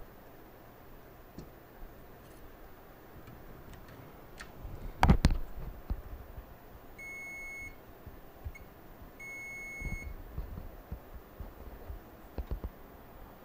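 Digital multimeter's continuity beeper sounding twice, each tone held for under a second, with a very short blip between, as the test probes touch a shorted point on the laptop motherboard. A loud knock about five seconds in, with small clicks of the probes on the board around it.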